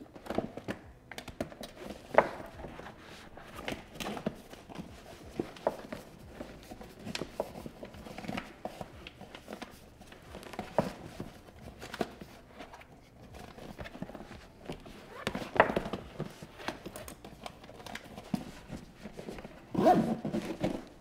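Handling of a Yeti Panga dry duffel bag: irregular rustling, crinkling and small knocks as its stiff waterproof zipper is pulled open and the coated fabric is handled, with a louder rustle near the end.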